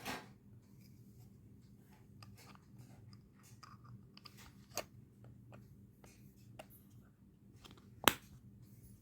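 Scattered small plastic clicks and taps from handling a ceiling fan's remote control, with a sharp click near the end, over a low steady hum.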